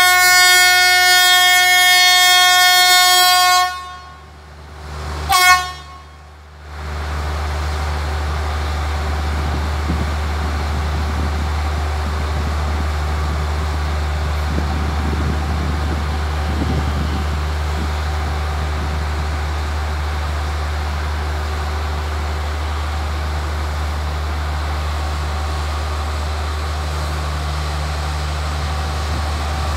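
Diesel locomotive's air horn sounding one long blast that cuts off about three and a half seconds in, then a brief toot a couple of seconds later. After that the locomotive's diesel engine idles steadily, a low hum.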